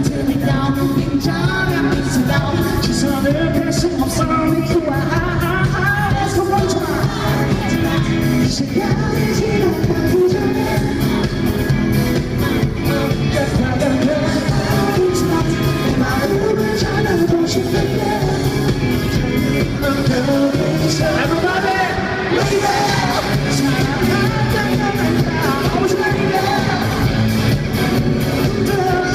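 Live pop-rock band playing through an arena sound system: a male vocalist singing over electric guitars, bass and drums, heard in a large hall.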